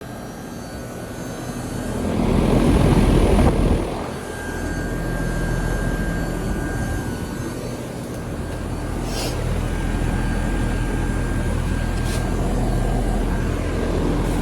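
2007 Trane XR13 3.5-ton heat pump outdoor unit running in heat mode: steady compressor hum with the condenser fan. A louder rushing swell builds about two seconds in and drops away just before four seconds, and two short hisses come later.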